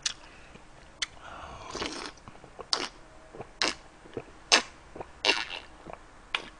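Mouth sounds of eating watermelon hwachae, watermelon chunks in cider, straight from a small glass bowl: wet chewing and slurping, with sharp clicks about a second apart and two short slurps.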